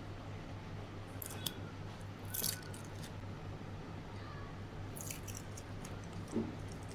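Smartphone box and packaging being handled: a few short rustles and scrapes, about a second in, around two and a half seconds, and around five seconds, and a soft thump near the end, over a steady low hum.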